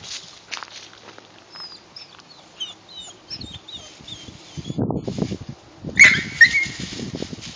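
Small birds chirping, then a chain-link fence rattling as a dog climbs it. About six seconds in comes a sudden loud yelp as the dog touches the pet electric fence wire and gets a shock, and the fence goes on rattling after it.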